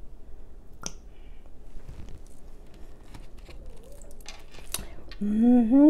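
A few faint clicks and taps of hands, a hot-sauce bottle and chicken at a paper plate, then near the end a loud hummed "mmm" of a woman's voice, wavering in pitch for most of a second.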